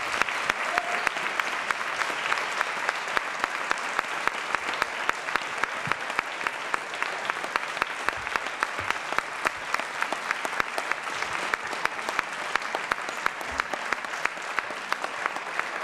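Audience applauding, a long, steady round of clapping.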